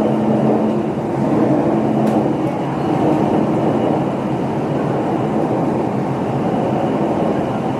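Shanghai Metro type 12A01 train running at speed through a tunnel, heard from inside the car: a steady, loud running noise of wheels on rail and air in the tunnel. A low hum under it stops a little over two seconds in, and there is a faint click around then.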